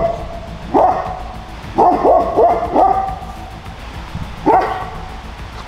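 Livestock guardian dog giving alarm barks at something out in the dark: one bark, then a quick run of four, then a single bark near the end.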